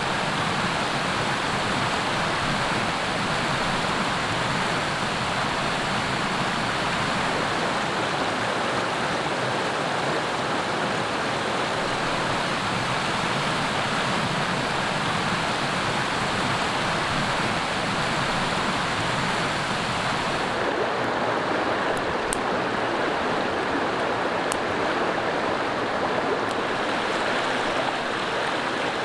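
Steady rush of a shallow stream flowing over rocks. About two-thirds of the way through the sound changes and turns slightly duller, and a few sharp clicks come through.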